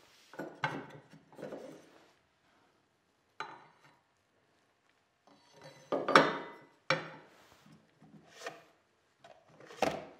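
Wooden workbench parts with an aluminium edge strip being handled: a string of short rubs, scrapes and knocks of wood and metal, the loudest about six seconds in.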